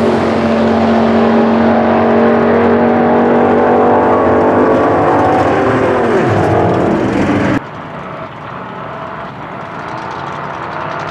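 Twin-turbo V8 drag car engines at full throttle down the strip, a loud steady note whose pitch falls away about six seconds in. About seven and a half seconds in the sound cuts to a quieter engine running steadily.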